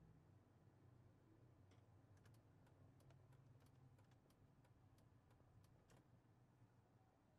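Faint ticking of a car's turn indicator, light clicks about three a second, over the low hum of the car running slowly inside its cabin. The ticking starts about two seconds in and stops about a second before the end.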